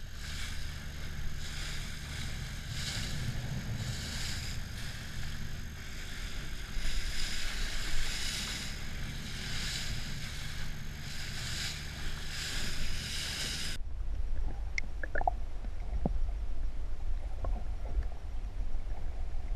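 Boat at sea: a steady low engine drone under rushing, surging water and wind on the microphone. About fourteen seconds in it cuts sharply to muffled underwater sound with a few faint clicks.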